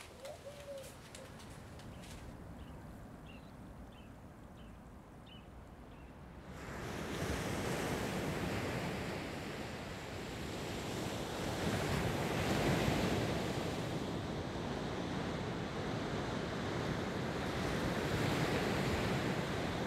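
A quiet stretch with a few faint high chirps, then about six seconds in, surf and wind on coastal dunes come in: an even rushing that swells and eases.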